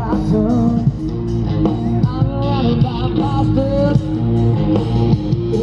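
Rock music playing, with a singer and guitar.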